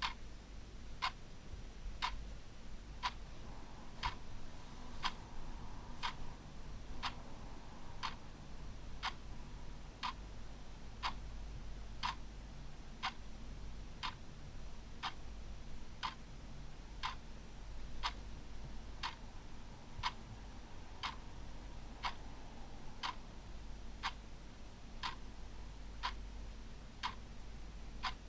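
Clock ticking steadily at one sharp tick a second, over a faint low hum.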